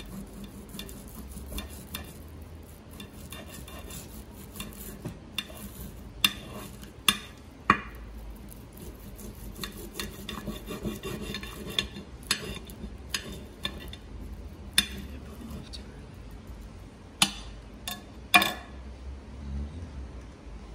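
A table knife sawing through a grilled steak while a fork holds it, the metal rubbing and scraping on a glazed ceramic plate, with several sharp clinks of cutlery striking the plate.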